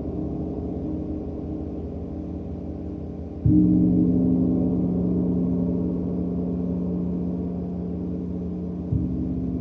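Gong ringing in a sustained, humming drone, struck firmly about three and a half seconds in and softly again near the end, each strike swelling the ring.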